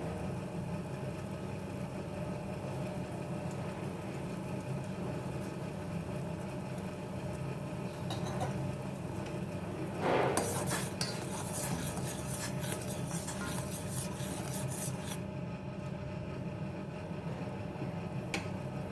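Metal kitchen utensils on a pan: a knock about ten seconds in, then several seconds of scraping and clinking, with one more click near the end, all over a steady low hum.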